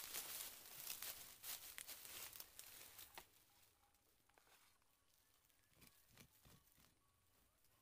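Dry bamboo leaves rustling and crackling as they are swept aside by hand on bare soil, with scraping in the dirt. After about three seconds it drops to a few light scrapes and clicks.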